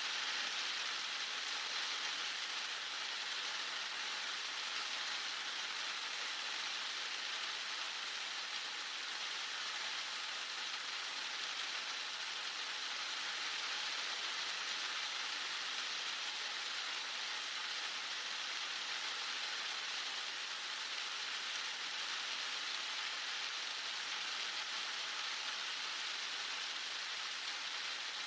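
Very hard rain falling steadily, an even, unbroken hiss with no let-up.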